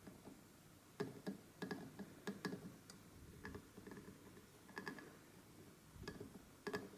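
Faint, irregular small clicks and taps of hand tools on a circuit board at a soldering bench, most of them bunched in the first half.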